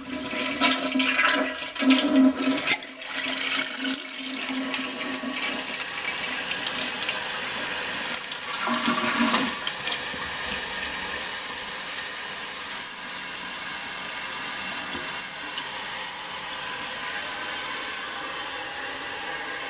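1988 Kohler Barrington toilet with a Floodmaster 400 series pressure-assisted tank, flushing: a loud, uneven rush of water for the first few seconds, then a steady hiss of water as the tank refills, turning brighter and hissier about eleven seconds in.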